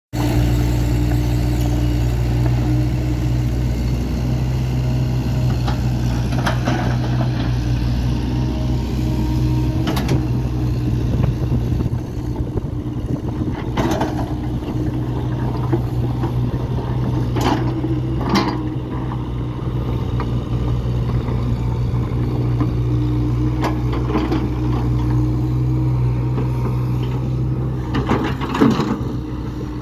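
Kobelco mini excavator's diesel engine running steadily as the bucket digs into a pile of broken rock and soil, with a few sharp knocks of stone against the steel bucket.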